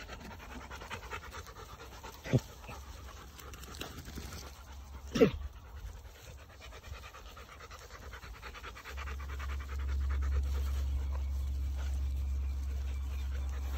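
Rottweiler panting hard, with two short sharp cries that fall in pitch about two and five seconds in. A steady low rumble comes in about nine seconds in.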